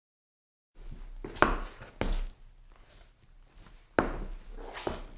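Shoe soles stepping and scuffing on a wooden floor: four footsteps, each a tap dragging into a short scrape, beginning after a brief silence.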